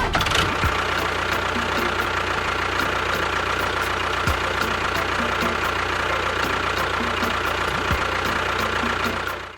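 A motor running steadily with a constant whine and a light, regular ticking. It cuts off suddenly near the end.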